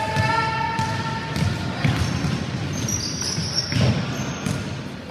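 Basketball bouncing on a wooden gym floor amid players' footsteps, with a voice calling out over the first second or so and high shoe squeaks about three seconds in.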